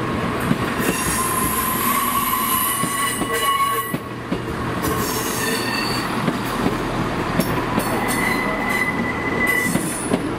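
Class 170 Turbostar diesel multiple unit rolling past at low speed, its diesel engine rumbling under a steady rail noise while the wheels squeal in several high ringing tones that come and go, strongest in the first few seconds and again near the end.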